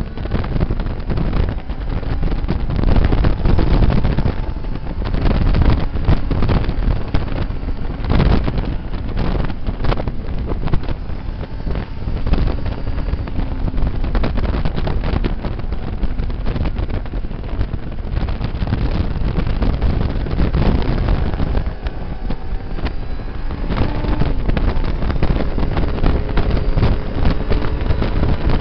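Motorcycle engine at track speed, its pitch sliding up and down as it revs and the rider shifts, under a heavy rush of wind buffeting the microphone.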